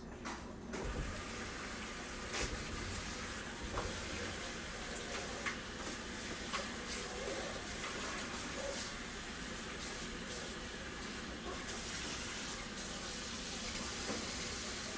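Kitchen tap running steadily into a bowl, filling it with water, starting about a second in, with a few light knocks of the bowl.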